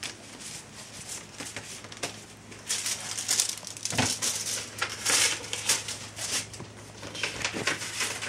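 Paper rustling and crinkling as an envelope is opened and a letter is handled, in irregular bursts that are loudest around the middle.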